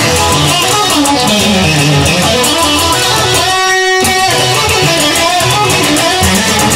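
Instrumental music with strummed electric guitar and bass, the low end dropping out briefly about four seconds in.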